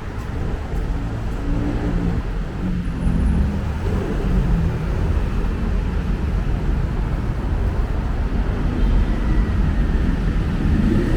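Steady city road traffic: vehicle engines running and passing in a continuous, heavy rumble.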